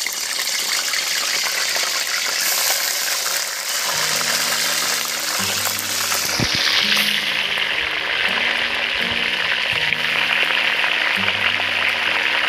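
Catla (katla) fish heads sizzling loudly in hot oil in a wok, a dense steady hiss as more heads are slid into the oil one after another. Background music with a low melody comes in about four seconds in.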